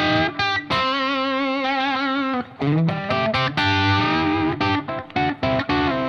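Electric guitar played through an Origin Revival Drive overdrive pedal into a Diezel Schmidt amp, with the pedal standing in for the amp's own overdrive. Overdriven single-note lines with a few held notes shaken with vibrato, broken by short pauses.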